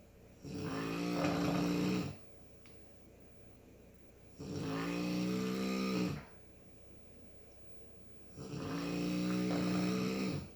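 Slow, regular snoring: three long snores about four seconds apart, each with a steady buzzing pitch.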